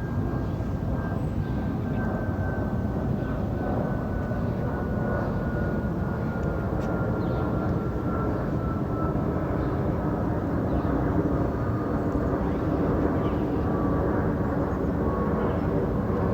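Twin-engine jet airliner flying overhead while climbing out after takeoff: a steady engine rumble with a whine that falls slowly in pitch as it passes.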